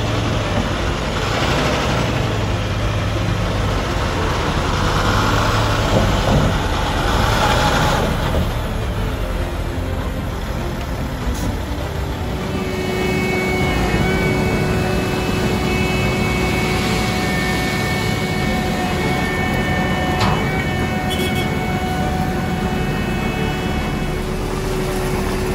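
Heavy semi-truck's diesel engine running as it rolls slowly, with several steady whining tones over the engine noise from about halfway through.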